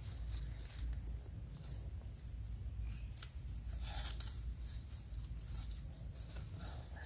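Faint rustling and light clicks, likely from handling as the snare is worked on, over a low wind rumble on the microphone, with two short high chirps about two and three and a half seconds in.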